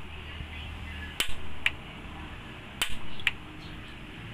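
Gas stove burner's igniter clicking as it is worked to test for a spark: sharp snaps in pairs, a louder click followed by a lighter one about half a second later, repeating about every second and a half.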